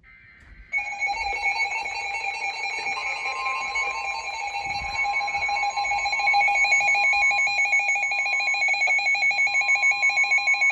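Weather-radio emergency alert tones announcing a new weather warning: a loud, rapidly pulsing alarm tone starts about a second in, and a second steady, slightly higher tone joins it a couple of seconds later. Both cut off together near the end.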